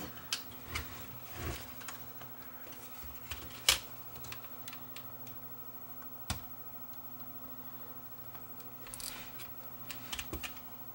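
Small clicks and taps of fingers working on a Sony Hi8 camcorder's open tape mechanism while its pinch roller's white retainer clip is pressed into place. Two sharper single clicks come a few seconds apart, then a quick run of ticks near the end, over a faint steady hum.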